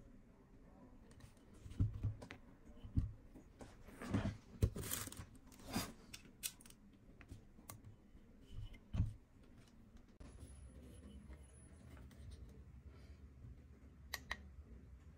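Handling noises from a small plastic auto-clicker and its metal rod arm: scattered knocks, rattles and short scrapes. Near the end come two sharp clicks close together as buttons on the clicker's control box are pressed, over a faint low hum.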